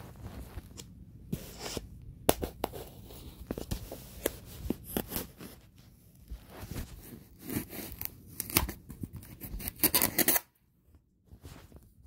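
Hands tearing and crinkling at a package's wrapping: irregular scratchy crackles and scrapes, with a dense flurry of tearing a little before the end.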